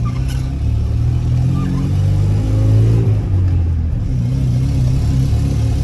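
The 1987 Dodge Ram 50's carbureted 2.6-litre four-cylinder engine, heard from inside the cab while driving. It revs up, falls away about three seconds in as a gear is changed on the five-speed manual, then pulls steadily again.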